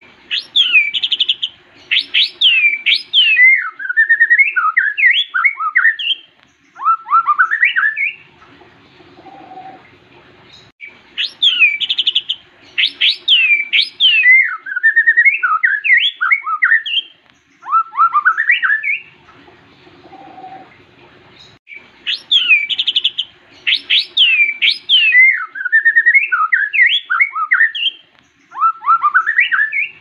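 White-rumped shama (murai batu) singing: the same phrase of sweeping, rising and falling whistled notes, about eight seconds long, given three times with a pause of about three seconds between each.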